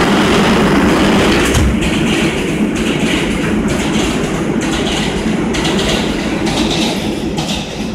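R160 subway train running past close by, a steady rumble with its wheels clicking over rail joints about once a second, easing off slightly toward the end.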